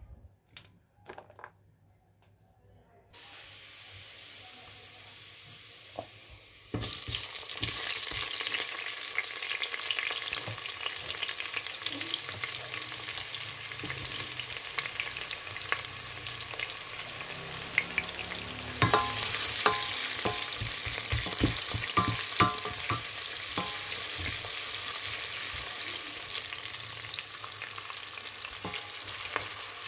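Sliced onions and garlic sizzling in hot oil in a stainless steel pot, stirred with a wooden spoon that knocks against the pot. The sizzle starts loud about seven seconds in. Before it come a few faint snaps of yardlong beans broken by hand, then a quieter steady hiss.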